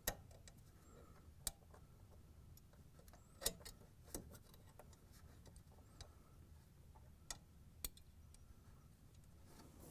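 Scattered sharp clicks and taps, about six in all at irregular intervals, as a wire bail strap is fitted over a refrigerator compressor's start device to hold it on the compressor terminals.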